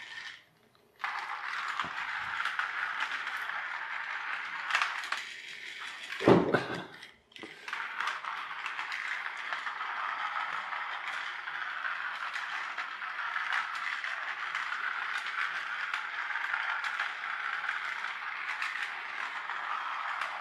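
Battery toy helicopter's small electric motor and plastic gears running with a steady rattling whirr as it drives along its slotted track. It cuts out briefly about half a second in. About six seconds in there is a loud thump, then a short drop-out before the whirr starts again.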